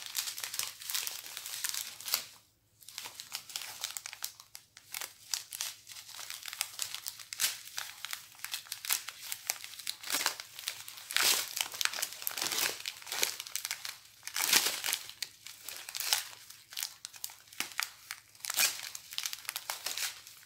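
Small clear plastic zip bags of diamond painting drills crinkling as they are handled and squeezed, in quick irregular crackles, with a short pause about two and a half seconds in.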